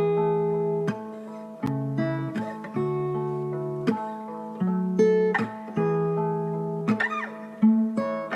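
Background music of an acoustic guitar strumming chords, a new chord struck about every second and left to ring.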